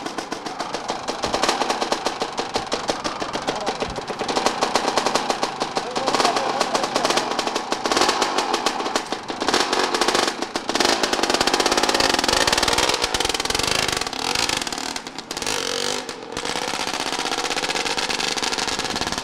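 Dirt bike engine running and revving, its pitch rising and falling several times as the bike is ridden off.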